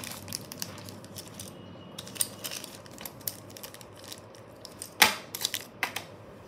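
Plastic LEGO pieces clicking and rattling in a clear zip-lock bag as it is handled, with crinkling of the bag. A louder knock comes about five seconds in, followed by a few smaller clicks, as the bag is set down in a cardboard box.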